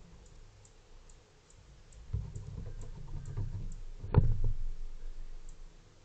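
A fox squirrel moving about right at the trail camera: close-up scuffling and bumping for about three seconds, with one sharp knock a little after four seconds in.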